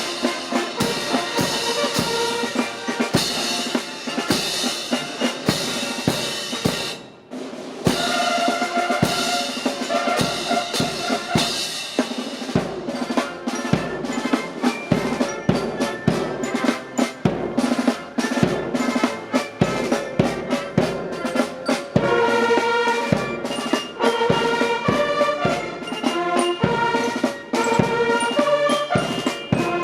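Military marching band playing a march, with snare and bass drums beating steadily under brass, and a brief break about seven seconds in.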